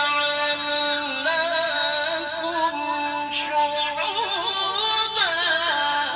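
A voice singing long, wavering held notes that slide between pitches.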